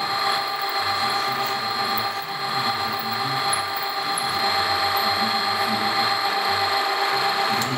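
Small benchtop milling machine running, its gear-driven spindle giving a steady mechanical whine of several tones as the end mill cuts stainless steel.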